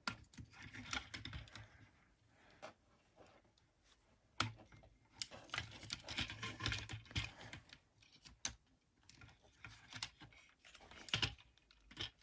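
Hard plastic toy parts handled and fitted together: scattered small clicks and rustles, with a few sharper snaps as a kit piece is pressed into place on the action figure.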